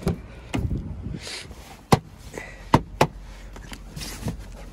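Car door opened by its outside handle: a latch click near the start, then a few sharp clicks and knocks about two and three seconds in as the door swings open and someone gets in, with rustling between.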